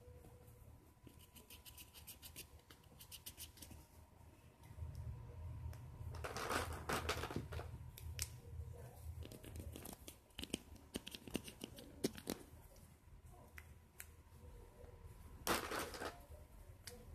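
Faint rustling and scratching of small things being handled, with a quick run of small clicks a couple of seconds in and two louder rasping brushes, one about halfway through and one near the end.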